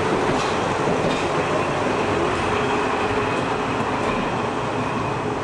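Passenger coaches of a departing train rolling past at low speed: a steady rumble of wheels on rail, with a few faint clicks about a second in.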